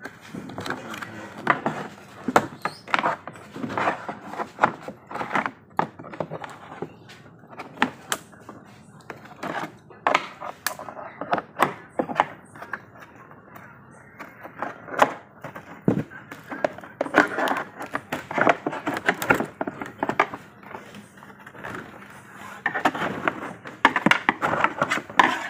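Fiberglass bumper being pried and pulled free of its fiberglass mold: irregular knocks, cracks and scraping as the cured part lets go of the mold.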